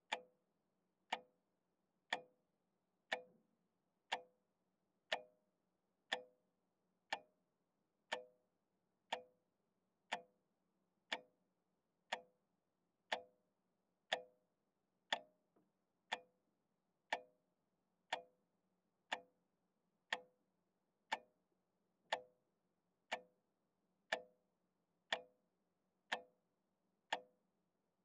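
Regular ticking, one sharp tick about every second with a short ringing decay, over a faint steady low hum.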